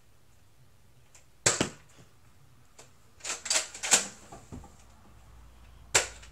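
Nerf dart blaster being primed and fired: a sharp plastic clack about a second and a half in, a quick run of clicks and clacks around the middle, and another sharp clack near the end.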